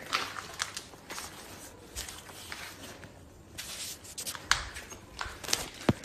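Slow, scattered footsteps with a few sharp clicks and knocks.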